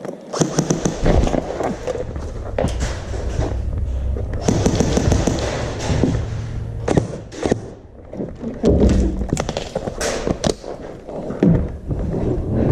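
Airsoft guns firing: irregular sharp pops and knocks, some in quick runs, over low rumbling noise from the microphone being handled and moved.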